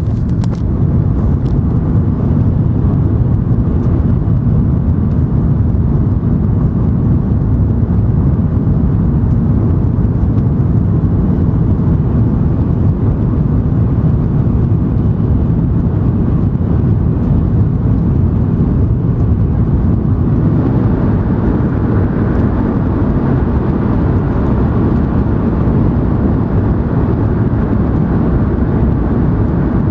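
Steady rumble and rush of an N700 series Shinkansen running, heard from inside the passenger cabin. A little over two-thirds of the way through, the noise takes on more hiss and stays that way.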